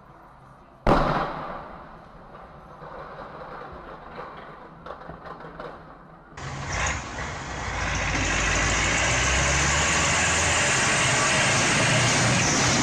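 A sudden loud bang about a second in, then street traffic noise; after about six seconds a large articulated four-wheel-drive tractor's diesel engine runs loudly and steadily.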